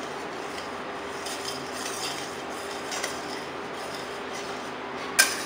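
Metal spatula stirring boiling milk in a stainless steel pan, scraping against the pan in repeated strokes, with one sharp clink of metal on the pan near the end.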